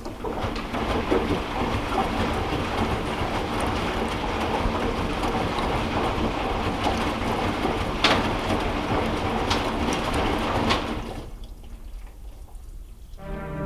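Washing machine running: a dense, steady mechanical noise with a few sharp knocks, cutting off about eleven seconds in.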